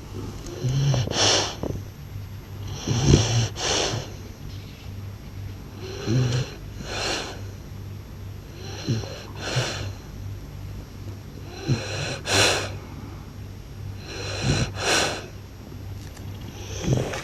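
A French bulldog snoring loudly: about six snoring breaths, one every two to three seconds, each a low rattling buzz running into a breathy hiss.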